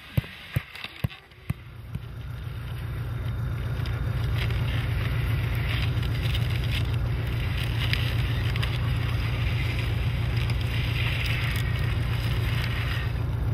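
A few sharp knocks, about three a second, in the first second and a half. Then a motor vehicle's engine comes in, with a low pulsing drone that grows louder over a couple of seconds and then runs steadily.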